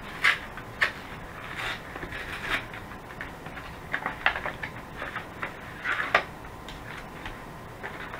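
Cardboard MRE entree carton being torn open and its foil retort pouch slid out. Irregular rustling, crinkling and scraping of cardboard and foil packaging.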